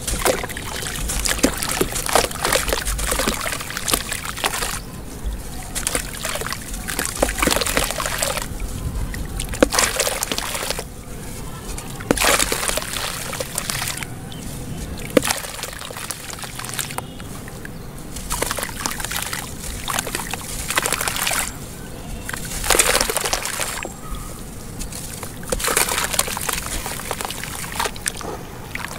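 A soaked sand-and-charcoal shape crumbling in the hands, its pieces splashing and trickling into a tub of water, with hands swishing through the water. It comes in uneven bursts with short lulls between them.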